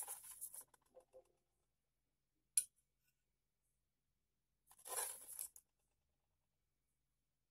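Metal spoon scraping and clinking in a paper-lined steel pot as cooked biscuits are lifted out. There is a short scrape at the start with a few faint clinks, a single sharp click about two and a half seconds in, and a longer scrape about five seconds in.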